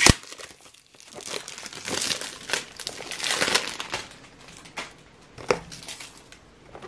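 Clear cellophane wrapper crinkling and tearing as it is pulled off a cardboard perfume box, with a sharp snap at the very start and another click near the end.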